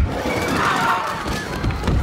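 Film sound effects of a giant gorilla's rampage: heavy thuds and crashes, one at the start and another near the end, over crowd commotion and music.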